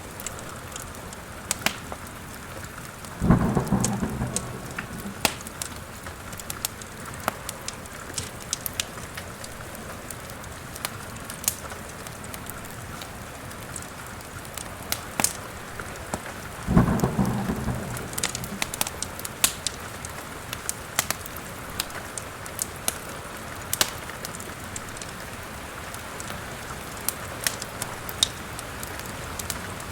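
Steady rain with two sudden thunder rumbles, about three seconds in and again a little past the middle, each fading out over a couple of seconds. Sharp crackles of a wood fire in a fireplace pop throughout.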